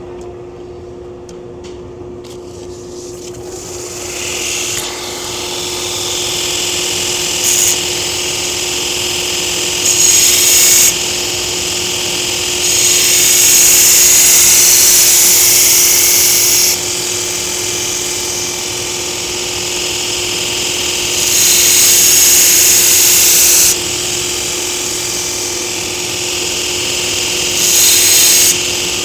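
Belt grinder running, with a knife blade pressed to the abrasive belt in five passes. Each pass is a loud grinding hiss lasting from under a second to about four seconds, the longest about 13 seconds in. A steady machine hum runs underneath. The passes are thinning the blade, grinding away its single-bevel scandi edge.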